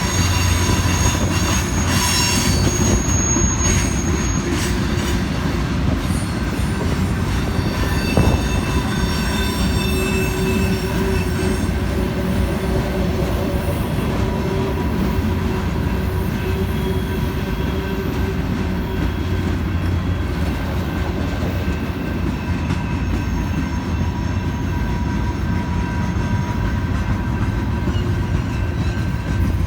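Freight cars of a Union Pacific manifest train rolling steadily past, steel wheels squealing against the rail with a continuous low rumble underneath.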